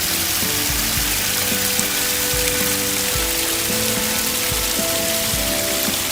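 Steady rushing splash of a high-flow pond waterfall, mixed with background music of held notes over a slow bass beat.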